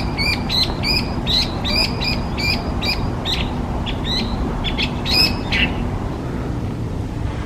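Hwamei singing: a fast, loud run of repeated whistled notes, about three a second, that breaks off about five and a half seconds in.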